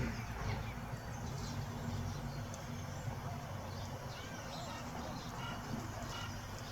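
Outdoor ambience: small birds chirping now and then over a steady low rumble, like distant traffic.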